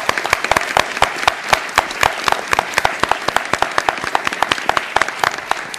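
Audience applauding, with individual claps standing out sharply from the rest.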